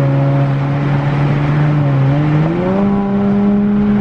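Dodge Charger SXT's V6 engine, fitted with Flowmaster mufflers and its resonators deleted, heard from inside the cabin as the car accelerates. Its drone holds steady, then rises in pitch about two seconds in and holds at the higher note.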